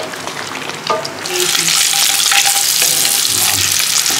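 Food frying in hot oil in a pan, a steady sizzle that gets louder a little over a second in.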